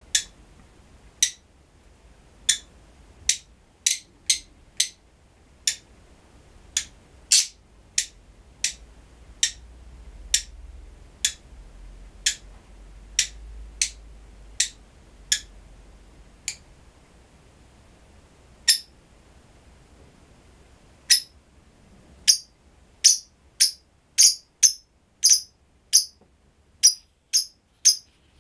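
Black-winged lovebirds (Agapornis taranta) giving short, sharp, high croaking calls, about one a second. After a lull about two-thirds of the way in, the calls come faster, about two a second.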